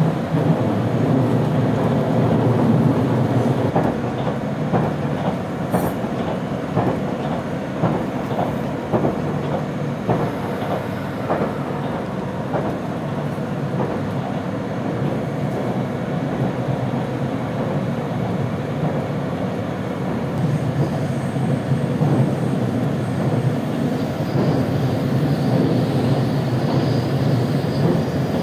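HC85 hybrid express train running at speed, heard from inside the passenger car: a steady low rumbling running noise with wheel clicks over the rails, most frequent in the first half.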